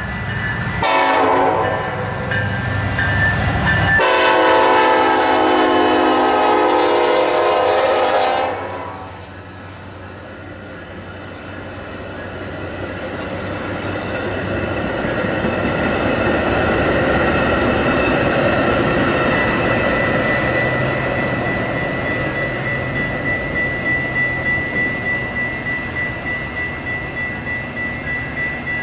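Metra commuter train's air horn sounding a short blast and then a long blast of about four seconds. The train then rumbles past, growing louder and easing off, with its wheels clacking rhythmically over the rail joints near the end.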